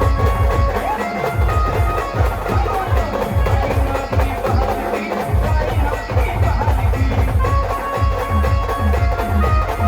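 Maharashtrian brass band playing loud dance music: steady, fast drumming under brass lines, with a long held high note over the last couple of seconds.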